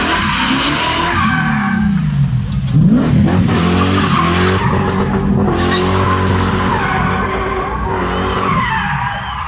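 BMW E30 ('box' BMW) doing donuts: the engine is held at high revs, dipping and climbing again a few seconds in, while the rear tyres skid and squeal on the tarmac.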